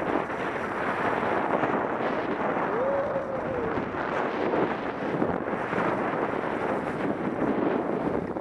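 Steady rushing noise of wind buffeting the camera microphone while skiing downhill, mixed with skis sliding over packed snow.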